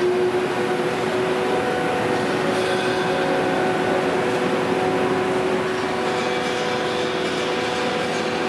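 Steady industrial machinery hum: a dense rushing noise with a few held steady tones over it.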